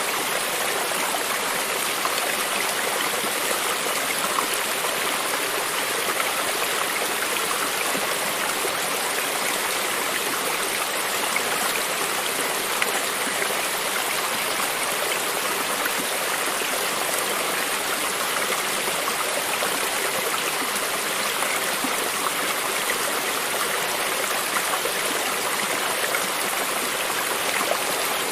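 Stream of running water flowing steadily, a constant rushing with fine splashing and no change.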